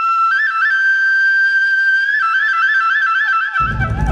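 Background music: a solo flute holds a high note, then plays a quick, repeating ornamented figure. Heavy low drums come in near the end.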